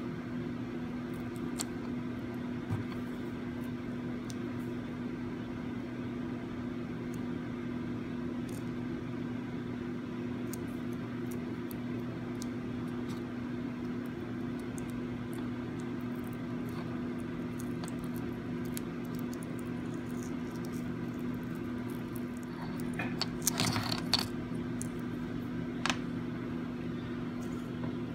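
Steady low electrical hum of a fan or bench appliance, with scattered faint ticks and a short burst of clicking and rustling near the end from small parts being handled.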